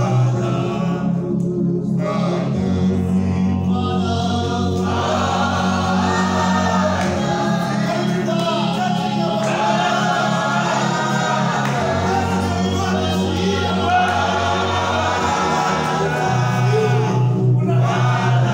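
A choir singing a gospel song over held low bass notes that change every few seconds.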